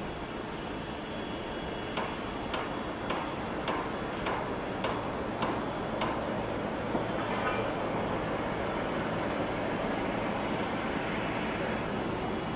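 Steady jet engine noise from a Boeing 777-300ER's GE90 turbofans, growing a little louder in the second half. A series of sharp ticks, about one every 0.6 seconds, runs through the first half, and a short burst of hiss comes about seven seconds in.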